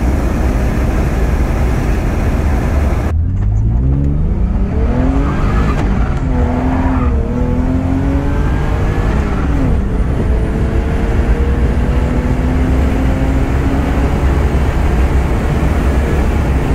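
Supercharged Isuzu KB 320 3.2-litre V6 accelerating under boost, heard from inside the cab over heavy road and wind rumble. About three seconds in, the engine note rises steeply in pitch, then holds steadier, then climbs slowly again later.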